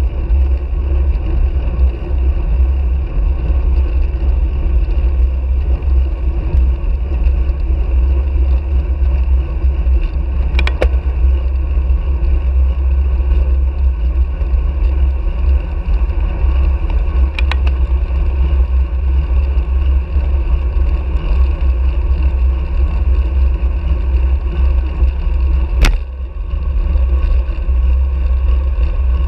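Wind rushing over the microphone of a handlebar-mounted action camera on a road bike moving at speed, with tyre and road noise underneath. A few sharp clicks stand out about 11, 17 and 26 seconds in.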